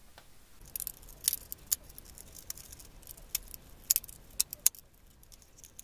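Scattered light clicks and ticks of a copper wire and small screwdriver being handled against a plastic switch board's terminals as a short wire is bent and fitted to a switch terminal.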